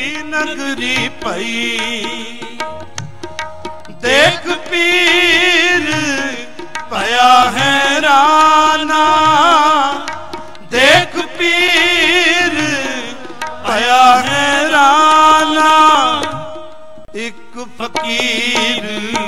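Sikh kirtan: harmonium drone and melody with tabla strokes, joined about four seconds in by voices singing two long, wavering phrases. Near the end the voices drop out and the harmonium carries on.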